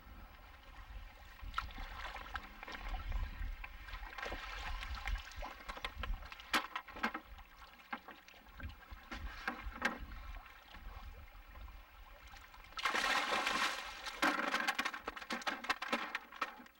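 Irregular knocks and thuds against a canoe, then a few seconds of loud splashing near the end as a hooked flathead catfish thrashes at the surface and is hauled dripping out of the water into the canoe.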